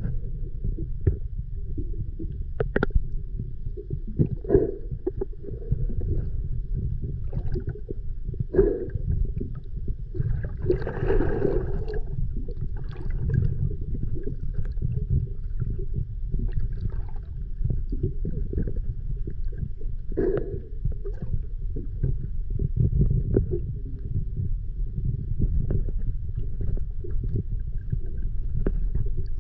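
Underwater ambience: a steady muffled low rumble with scattered gurgling, and a louder bubbling gush about eleven seconds in.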